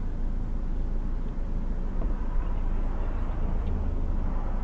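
A steady low rumble inside a stationary car's cabin, with road traffic passing on the street and swelling slightly midway.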